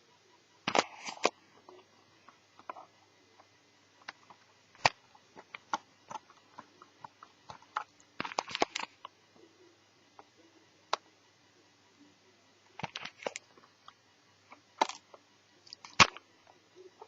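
Scattered clicks and taps as the parts of an Asus Eee PC netbook are handled while a hard drive is fitted. Some come singly and some in short quick clusters.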